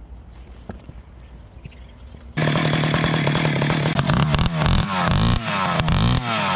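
Vintage Stihl 031 two-stroke chainsaw, fitted with two stacked carburetors, starts abruptly a little over two seconds in, running steadily and then revved up and down several times.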